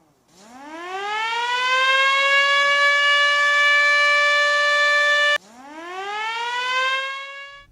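Air-raid siren winding up from a low pitch to a steady high wail and holding it. About five seconds in it cuts off abruptly and at once winds up again, still rising toward the high tone near the end.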